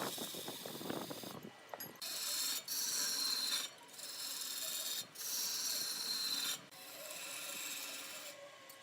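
Tool cutting wood in repeated rasping strokes, each about a second long with short breaks between, after a lower rattling in the first second or so.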